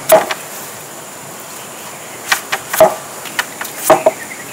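Large kitchen knife chopping through a jackfruit and striking the cutting board: one sharp knock at the start, then about five short knocks in quick succession in the second half.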